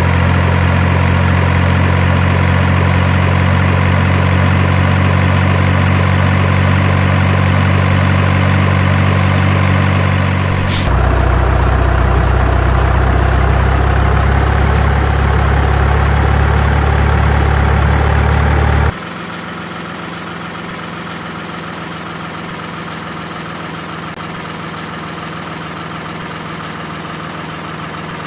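Steady engine idling drone. At about 11 seconds in it switches abruptly to a deeper, louder hum, with a short sharp click just before. Near 19 seconds it cuts to a quieter, thinner drone.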